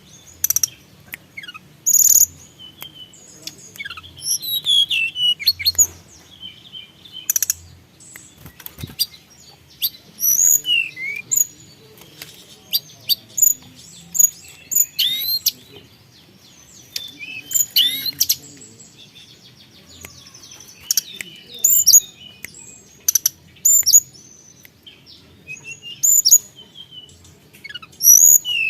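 Tledekan gunung songbird singing a busy, varied song: sharp high chirps, quick rising and falling whistled notes and short rapid phrases, delivered in bursts with short pauses between them.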